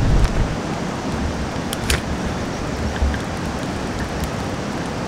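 Wind buffeting the microphone on an open hillside: a steady rushing noise with a gusty low rumble. It carries a few sharp clicks about two seconds in.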